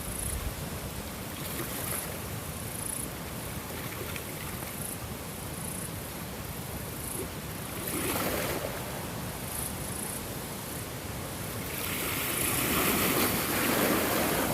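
Ocean waves washing in, a steady wash of surf that swells once about halfway through and again, louder and longer, near the end.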